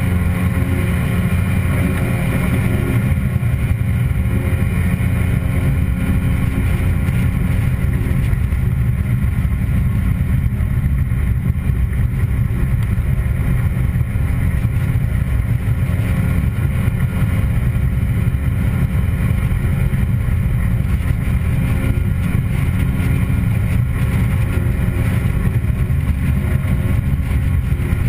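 Outboard jet motor running steadily while the boat is under way.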